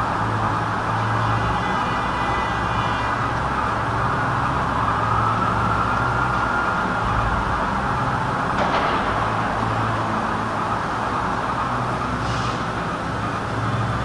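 Steady city street noise with traffic hum, holding at an even level. A faint tone drifts up and back down around the middle.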